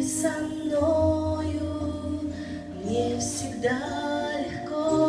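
Christian song sung in Russian: a female voice holding long, slow notes over sustained low accompaniment notes.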